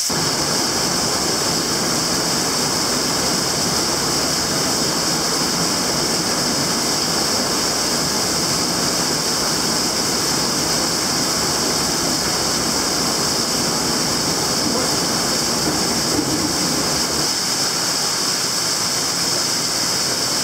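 Falling water rushing and splashing steadily down a cave shaft, a loud, even noise with no breaks.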